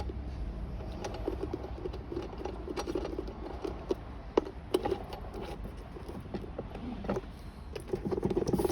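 Nylon-insert lock nut being tightened onto a kids' ride-on car's rear wheel axle with a hand tool: irregular small metallic clicks and rattles with handling noise.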